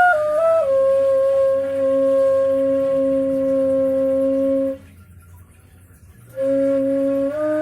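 Homemade ney, an end-blown flute made from PVC pipe, played in a sound test: a short step down in pitch, then one long held low note of about four seconds. After a pause of about a second and a half, the note comes back and steps upward near the end.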